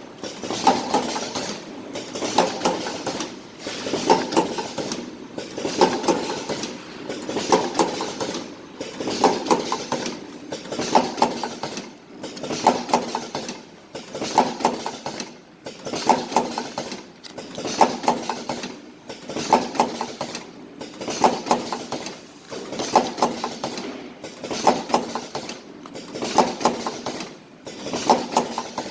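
Automatic cartoning machine running, its mechanism clattering and clicking in a repeating cycle about once a second, each box-forming and loading stroke followed by a brief lull.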